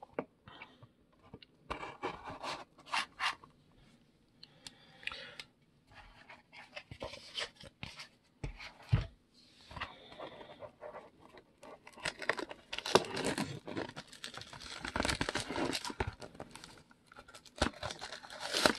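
Plastic shrink wrap being torn and peeled off a sealed Topps Tier One baseball card box: irregular crinkling and tearing with small clicks, busiest about two thirds of the way through.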